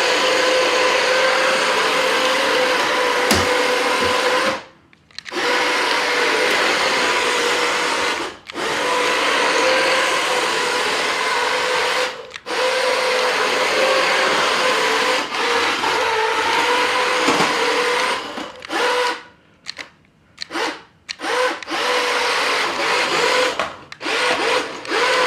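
Toy RC drift car's small electric drive motor and gears whining at full throttle, dropping out briefly several times when the throttle is let off, with a run of quick on-off bursts near the end.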